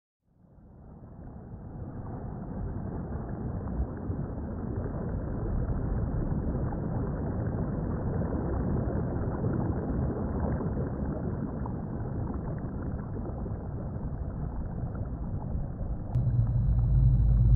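Muffled, rumbling noise with no clear pitch, fading in from silence over the first two seconds and then holding steady. Near the end a deep low drone comes in and it grows louder.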